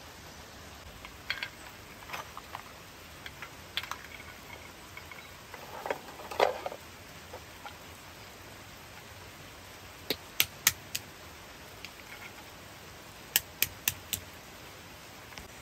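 Walnuts being cracked with a stone in a clay bowl: two quick runs of four sharp knocks in the second half, after scattered lighter knocks and a clatter of handling earlier on.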